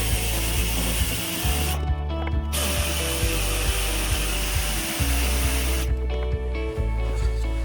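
Background music with a low, stepping bass line, laid over workshop tool noise that is cut off abruptly twice.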